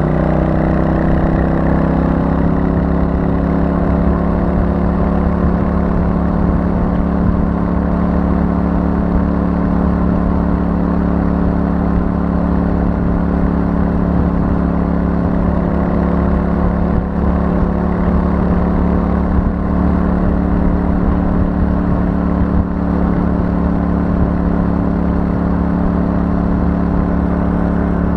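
Royal Enfield Super Meteor 650's 648 cc parallel-twin engine through its stock exhaust, cruising. The engine note eases down slightly right at the start, then holds at steady revs.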